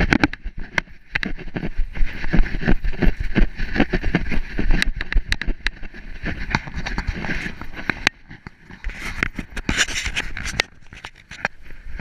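Handling noise from a GoPro strapped to a poodle's back: irregular knocks, rattles and fur rubbing against the camera as the dog moves about, with a stretch of louder rubbing about nine seconds in as a hand strokes the fur by the camera.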